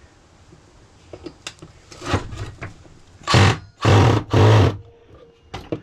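Small clicks and scrapes of a tool working a stuck screw on a microwave magnetron, then three short, loud, hissing bursts about half a second apart.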